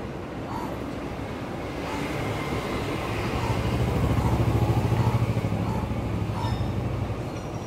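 A few motor scooters and motorcycles passing along the street, their engines growing louder as they come nearer, loudest about halfway through, then fading away.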